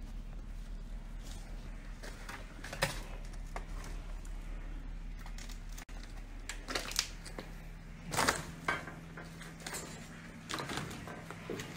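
Scattered footsteps and scuffs on a rubble-strewn floor, a few short knocks and scrapes with the loudest cluster about two-thirds of the way in, over a steady low hum.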